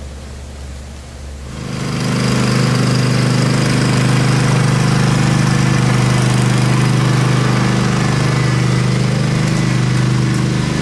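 A small gasoline engine running steadily; it comes in suddenly about a second and a half in, over a low hum.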